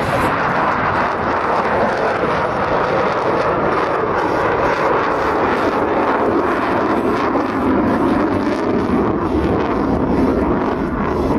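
A Lockheed Martin F-35 Lightning II jet fighter, its single Pratt & Whitney F135 afterburning turbofan making a loud, steady rushing jet noise as it flies overhead in a display.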